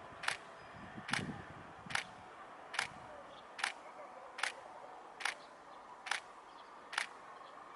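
Sharp mechanical ticking at a steady pace, a little more than one click a second, over a faint steady background hum.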